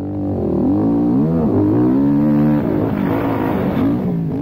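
Suzuki LTR 450 quad's single-cylinder four-stroke engine revving under acceleration, its pitch climbing and dipping as the throttle is worked, loudest through the middle and easing off about two and a half seconds in.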